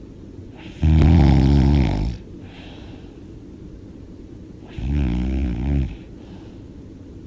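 A sleeping woman snoring loudly: two snores about four seconds apart, each lasting a second or so, with a softer breath out after each.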